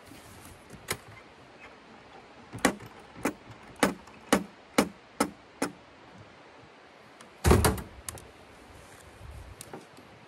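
Camping gear being handled during setup: a run of about seven sharp clicks or knocks, roughly two a second, then one heavier thump about seven and a half seconds in.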